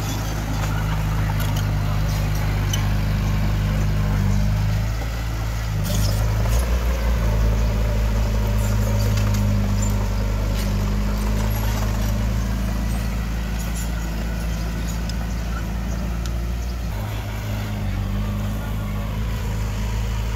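Heavy earthmoving machine's diesel engine running steadily, its note shifting about five seconds in and again near the end, with a few short knocks.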